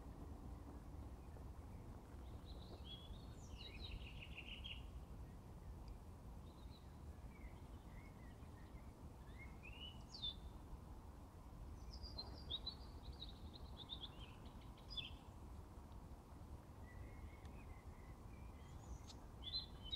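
Songbirds singing at a distance: scattered short chirps and trilled song phrases, faint, over a steady low rumble.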